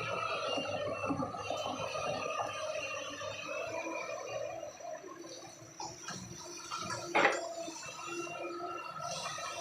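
Hyundai 210 excavator running steadily, with water and mud sloshing. A single sharp knock about seven seconds in.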